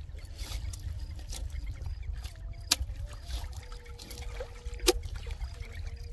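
Two sharp knocks about two seconds apart: a knife chopping fish on a wooden block. A low rumble runs underneath.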